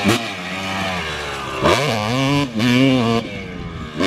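Dirt bike engine revving as it is ridden, its pitch rising and falling with the throttle, with a sharp climb about halfway through and a falling tone near the end.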